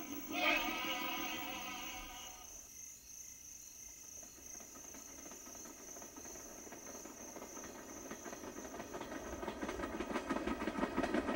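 Music dies away in the first two seconds; then the clatter of a train running on the rails fades in and grows louder toward the end.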